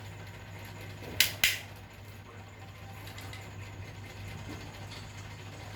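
Two sharp clicks about a quarter of a second apart, over a steady low hum.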